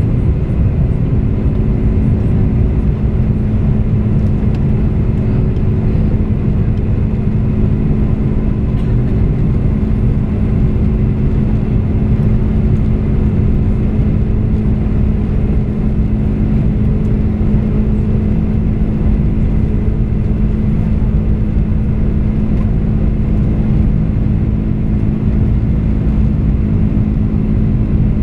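Cabin noise inside a Boeing 747-400 taxiing: a steady low rumble with a constant hum from the engines at low thrust, no spool-up.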